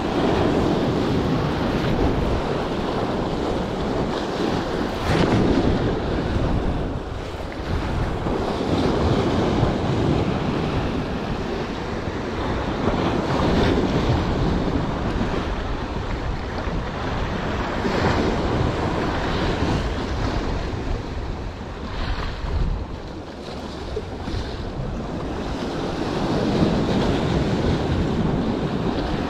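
Sea waves washing against shoreline rocks in surges that swell and fade every few seconds, with wind buffeting the microphone.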